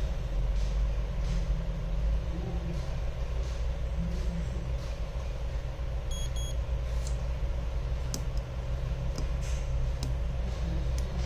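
A steady low rumble throughout, with two short electronic beeps about six seconds in from a handheld True Tone programmer as it works on the connected iPhone X screen, and a few faint ticks of handling.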